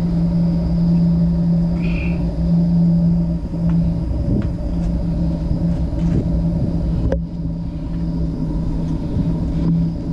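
A steady low mechanical hum over a rumble, like a motor running at a constant speed, with a short high chirp about two seconds in and a sharp click about seven seconds in.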